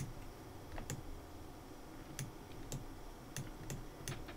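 Faint, irregular clicks of a computer mouse and keyboard, about seven single clicks a fraction of a second to a second apart.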